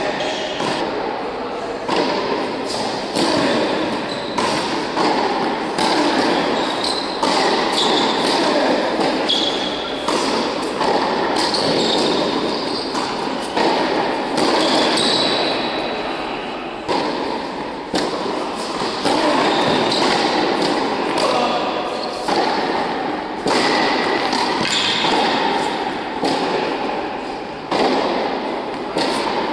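Tennis balls being struck by racquets and bouncing on an indoor hard court during a rally, a sharp hit every second or two, echoing in the large hall.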